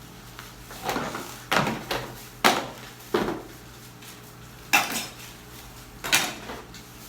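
Dishes and utensils clattering: about six separate knocks and clinks, irregularly spaced, each ringing briefly.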